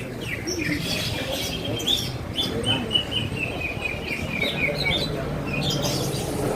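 Cucak ijo (greater green leafbirds) singing in competition: a run of quick, evenly repeated chirps, about five a second, that slowly falls in pitch, with other scattered bird calls before and after, over a low murmur of voices.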